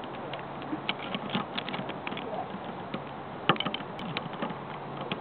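Metal carabiners clicking and clinking together as they are handled: an irregular scatter of sharp clicks, the loudest about three and a half seconds in.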